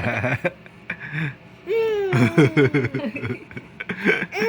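A baby's high-pitched vocal sounds and laughing: a long falling squeal about two seconds in, a run of short choppy laughing sounds, and another long falling squeal near the end.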